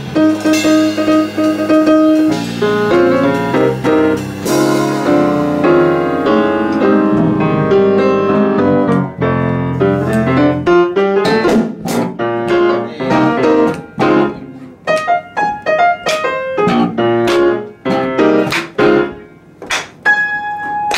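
Yamaha grand piano playing: full chords over low bass notes for about the first ten seconds, then sparser single struck notes and short runs.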